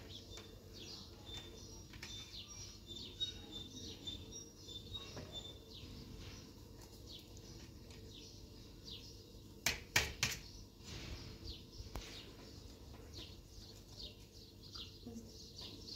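Small birds chirping and twittering in short, high calls, over a low background hush. Two or three sharp clicks or knocks come close together around the middle.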